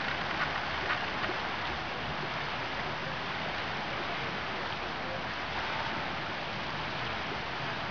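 Steady wash and splashing of lake water around a wading Irish Setter as small waves roll in, with a few sharper splashes within the first second and a half.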